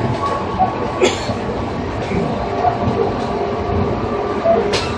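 JR 205 series electric train with external-fan traction motors, heard from inside the car running at a steady speed: a continuous hum from the motors and gears over the rumble of the wheels, with two sharp clacks, about a second in and near the end.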